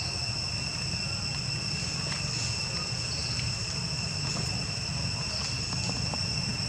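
Insects droning in one steady, high-pitched continuous tone, over a low rumble.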